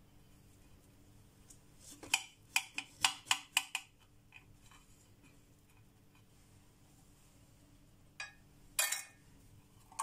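A quick run of about seven light clinks of a kitchen utensil against a dish about two seconds in, then a short scrape near the end.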